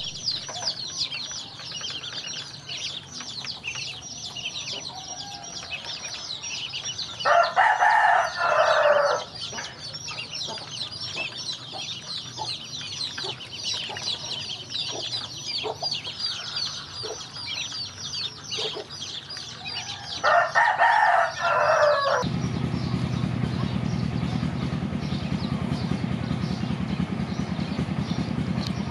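A crowd of ducklings peeping nonstop in quick, high, falling calls, while a rooster crows twice, about 7 and 20 seconds in, each crow about two seconds long and the loudest sound. About 22 seconds in the peeping stops abruptly and a steady low rumble takes over.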